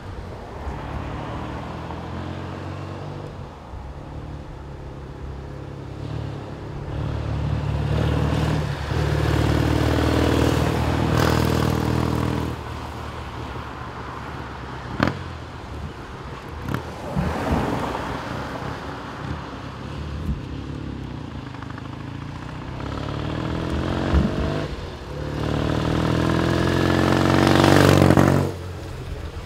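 1965 BSA Lightning 650 parallel-twin engine running as the bike is ridden along the road. It pulls up with rising pitch around ten seconds in, then runs quieter, then revs up again and is loudest as it passes close near the end, dropping away suddenly. A single sharp click is heard midway.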